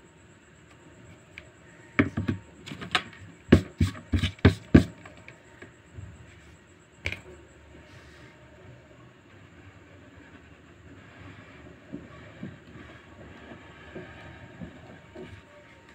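A quick run of sharp clicks and knocks on a wooden drawing board as the pencil is set down and a black felt-tip pen is picked up, with one more knock a couple of seconds later. After that comes the faint scratch of the felt-tip drawing on paper.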